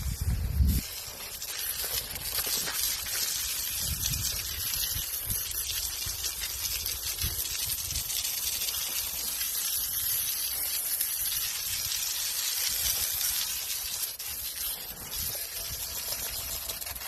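Water hose spraying steadily, rinsing concrete residue off the dismantled parts of a gunite machine, with a few low thumps, the loudest in the first second.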